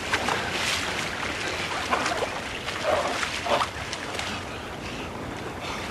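Sea water splashing and sloshing around a swimmer stroking through the waves, with a few short breathy cries or gasps about two to three and a half seconds in.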